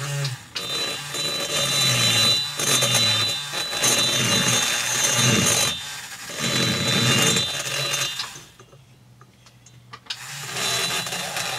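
Dental-lab right-angle handpiece, driven by a small electric motor, spinning a carbide burr inside a chainsaw cylinder's port and grinding the metal with a steady high whine and chattering. The grinding stops about eight seconds in and starts again about two seconds later.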